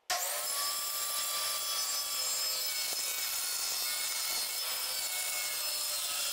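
Corded circular saw running and cutting through a sheet of half-inch birch plywood, a steady whine over the noise of the blade in the wood. It starts abruptly just after the beginning and holds level.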